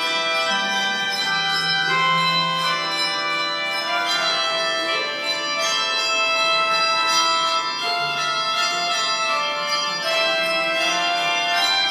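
Organ and handbells playing an Easter prelude together: sustained organ chords with handbells ringing over them.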